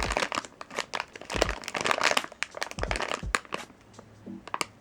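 Plastic packaging crinkling and crackling in irregular bursts while being handled, easing off after about three and a half seconds.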